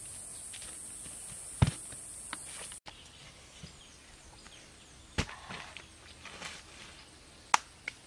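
A few sharp knocks and thuds of a thrown lump of earth striking the ground, with footsteps and rustling in dry leaf litter. A steady high hiss runs under the first few seconds and cuts off suddenly.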